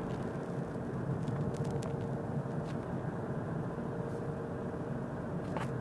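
Car running in a high gear, heard from inside the cabin: a steady engine and road drone with a few faint clicks scattered through it.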